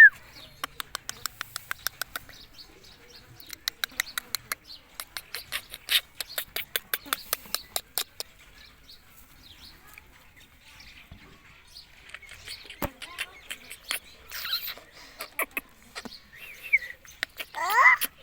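A run of sharp clicks, several a second, over the first half, then soft scattered chatter. Near the end an Indian ringneck parrot gives a short, loud call that slides in pitch.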